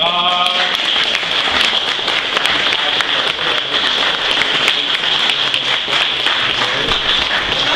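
Applause from a gathering of people: many hands clapping together at a steady level.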